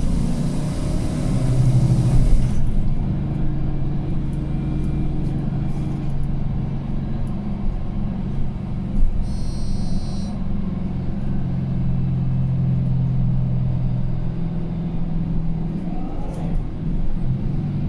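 Mercedes-Benz Citaro C2 G NGT articulated city bus heard from inside, its M 936 G natural-gas engine running with a steady low drone as the bus drives. A hiss stops suddenly about two and a half seconds in, and a brief high-pitched tone sounds about nine seconds in.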